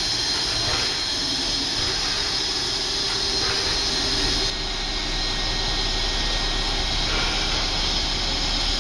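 Standing NSW steam locomotives hissing steam in a loud, steady rush with no breaks. The hiss changes in tone about halfway through.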